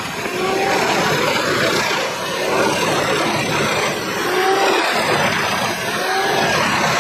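Spiked steel roller of a wood-processing machine turning against a log: a loud, steady grinding noise with short squeaks now and then.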